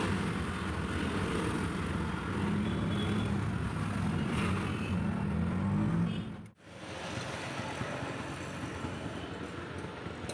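Auto-rickshaw engine running with road and traffic noise, heard from inside the open cabin while riding. About six and a half seconds in it cuts off abruptly, giving way to quieter, even street noise.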